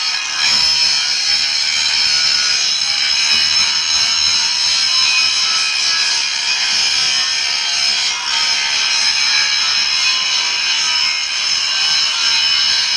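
Steady, continuous abrasive noise of a tool working on material, with a brief dip about eight seconds in.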